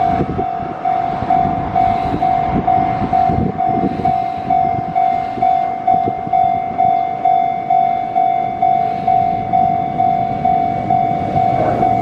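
Japanese level-crossing warning bell ringing in an even, repeating ding-ding at about two strokes a second, signalling that a train is approaching. Low rumble of rail and traffic noise underneath.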